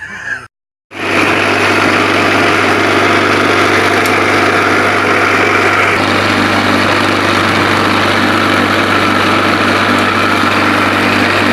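Electric vibrator of a concrete tile-making mould running steadily, a loud, even hum with a harsh buzz as it compacts the mix. It starts abruptly about a second in.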